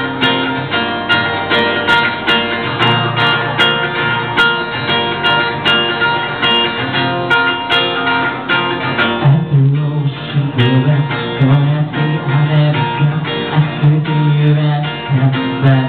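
Instrumental music led by guitar, with no singing. A stronger bass part comes in about nine seconds in.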